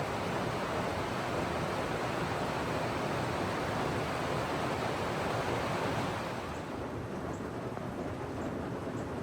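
Heavy rain pouring, a steady full hiss. About six seconds in it drops to a softer, thinner hiss with a few faint high ticks.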